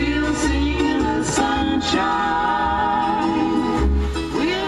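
A song with a singing voice and a steady bass line playing from a Dual Bluetooth car stereo through the car's speakers.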